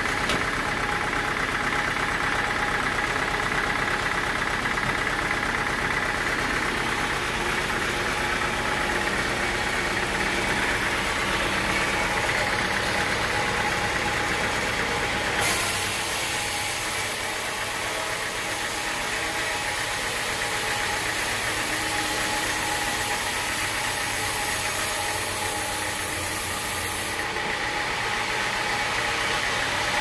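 Band sawmill running steadily, its band blade cutting lengthwise through a teak log, with a brighter hiss from about halfway in until near the end.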